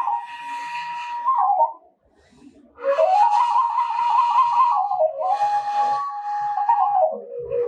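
Washint, the Ethiopian end-blown bamboo flute, playing a slow solo melody with an airy tone: a held high note, a short breath pause about two seconds in, then a phrase that climbs stepwise and falls back, ending on a low held note.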